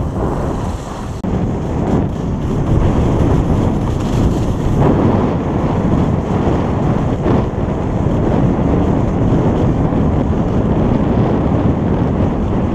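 Wind rushing over the microphone of an action camera worn by a skier going downhill: a steady, loud, low rush.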